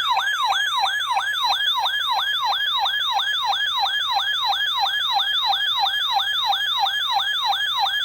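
Electronic siren-like emergency alert tone, falling in pitch over and over at about three sweeps a second, loud and even. It cuts off abruptly at the end.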